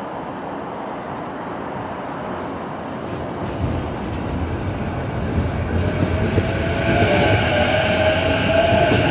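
A JR 185-series electric train approaching along the rails, its running noise growing steadily louder from about a third of the way in. Steady high tones join it in the last few seconds.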